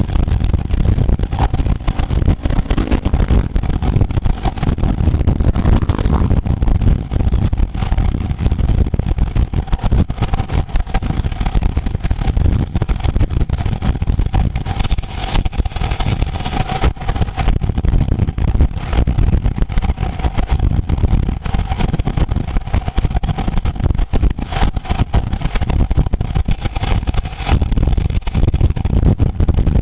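Wind buffeting the microphone of a camera riding along on a road bike at race speed: a loud, steady rumble that flutters unevenly, with a faint steady hum running under it.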